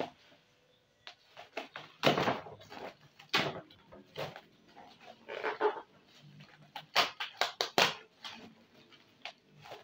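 Black bubble-wrap and plastic packaging crinkling and tearing as it is pulled open by hand, in irregular rustling bursts with sharper crackles near the end.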